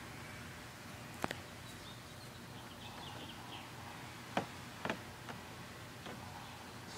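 A few sharp knocks and taps as a toddler climbs onto a small plastic slide, her hands and feet bumping the hollow plastic, over a low steady outdoor background.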